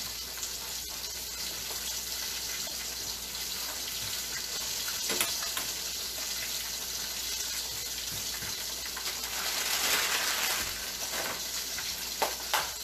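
Whole sea bass frying in hot oil in a wok: a steady sizzling hiss, with a few sharp clicks about five seconds in and near the end.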